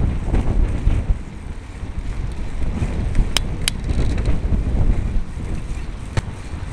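Wind buffeting a bicycle-mounted camera's microphone while riding, with a low rumble of tyres on asphalt. Two sharp clicks a third of a second apart just past the middle.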